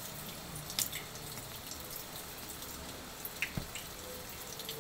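Water running and dripping in the background, a steady faint wash, with a few sharp light clicks: one just under a second in and two more later.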